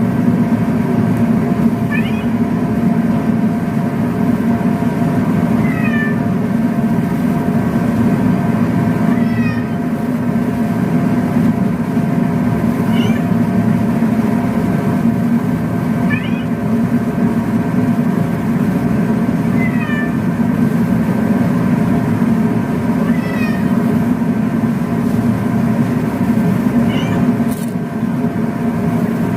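A recorded cat's meow played over and over, about every three and a half seconds: the voice of the cartoon cat Tama. It repeats over a loud, steady hum.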